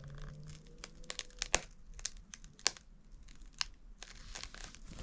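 Cracked phone screen glass crackling and snapping in irregular sharp clicks as it is pried up and broken away with a razor blade; the loudest snap comes about a second and a half in.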